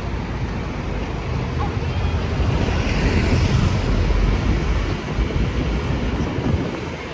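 Street noise of a vehicle going by, a rushing rumble that swells about three seconds in and fades again.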